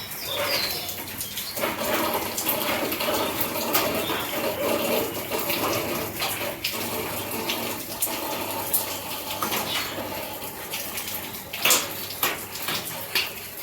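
Raw jackfruit pieces and onions frying in hot oil in a pan, giving a steady sizzle, with a spatula stirring and scraping and a few sharper knocks against the pan near the end.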